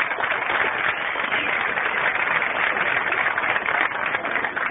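Crowd applauding: a steady, dense patter of clapping.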